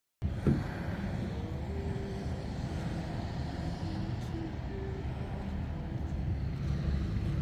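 Steady low rumble of road traffic, starting abruptly after a brief gap, with a light knock about half a second in.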